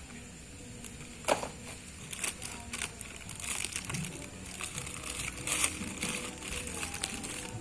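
Unboxing noises: packaging being handled and pulled open, with irregular rustling, crinkling and clicks and one sharp knock a little over a second in.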